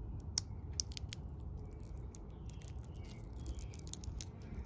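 Small metallic clicks and ticks from the steel fold-over clasp of a Zelos Mako V3 watch bracelet being worked by hand, coming irregularly several times a second, over a low steady rumble.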